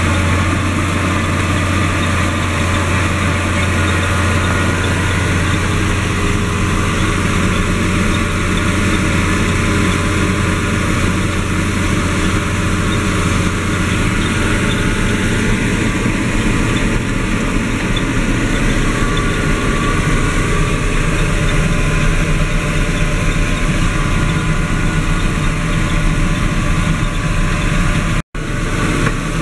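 John Deere 7530 tractor's six-cylinder diesel running steadily while pulling a cultivator and seed drill, heard from inside the cab as an even, low drone. The sound cuts out for an instant near the end.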